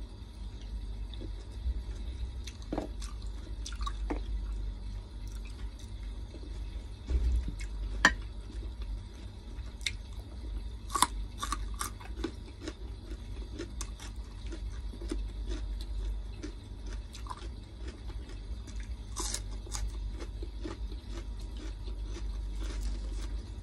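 Someone eating a breakfast of fried fish, egg and garlic rice: chewing with scattered sharp clicks and taps, over a steady low hum.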